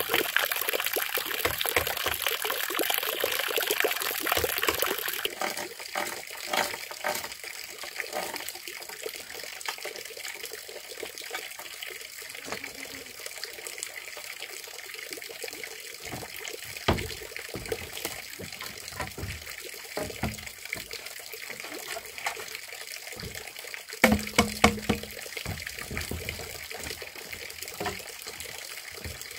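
Running water, loud for about the first five seconds and then a quieter steady trickle, with scattered light knocks and a cluster of sharper knocks later on.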